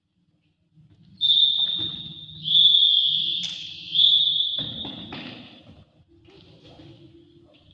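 Referee's whistle blown in three long blasts in quick succession, each running into the next, the signal for the end of the futsal match.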